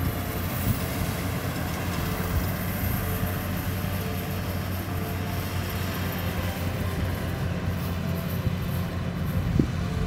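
Rice combine harvester's engine running steadily, a constant low drone.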